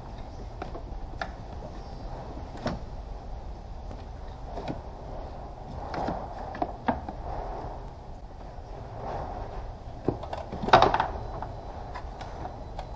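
Rubber seal strip and plastic cowl cover being pulled off a car's engine-bay firewall by hand: scattered clicks and rustling, with a louder burst of crackling and scraping near the end.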